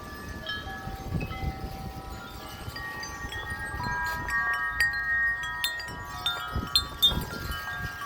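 Wind chimes ringing continuously as strong gusts shake them, many tones sounding and overlapping at once, busiest in the middle. Gusts of wind rumble on the microphone now and then.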